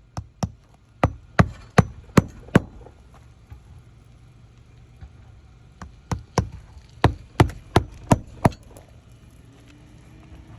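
Hand hammer striking during a roof shingle repair: two runs of quick, sharp blows, about three a second, the first near the start and the second about six seconds in.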